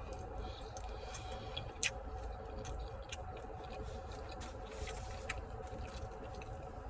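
Someone chewing and biting into fried chicken: scattered wet mouth clicks and crisp crunches, one sharp click a little under two seconds in standing out, over a steady low hum.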